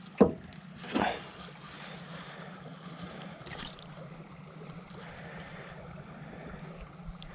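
A small bass landed at the side of the boat: a sharp knock just after the start, then a splash about a second in, followed by a low steady hum under water and wind noise.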